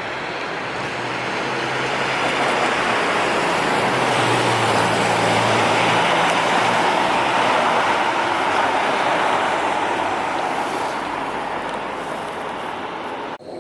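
A vehicle rolling past, its noise swelling to a peak about six seconds in and fading again, then cut off abruptly near the end.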